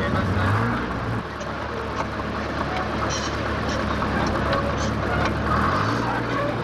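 Heavy engine running steadily. Its pitch drops about a second in and rises again near the end.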